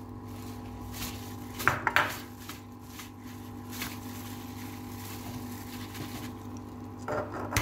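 A gloved hand mixing and kneading a soft sugar-and-fat paste in a mixing bowl: faint mixing sounds with a few knocks against the bowl about two seconds in and again near the end, over a steady low hum.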